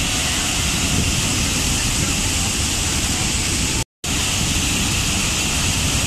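Large waterfall pouring into its plunge pool, a loud, steady rush of falling water. The sound cuts out to silence for a split second just before four seconds in, then resumes unchanged.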